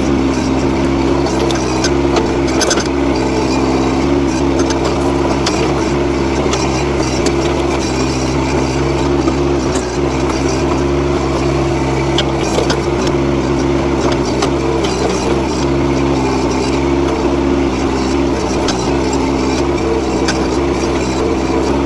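NT18K mini excavator's engine running steadily while the arm and bucket work, with scattered knocks and cracks of wood and debris as the shed is pulled down.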